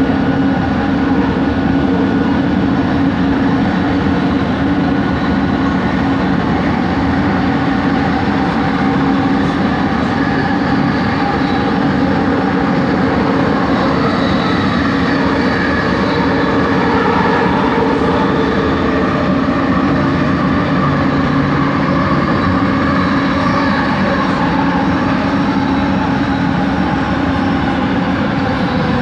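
Kelana Jaya Line light-rail train running, with a loud, steady rumble and the whine of its original traction motors, the odd-sounding motor noise of these sets. Several steady tones sit over the rumble and shift slightly in pitch as the train runs.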